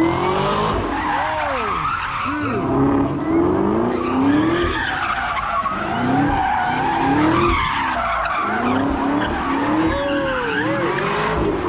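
Chevrolet Camaro doing donuts, its engine revving up and down over and over about once a second while the rear tyres squeal and scrub on the asphalt.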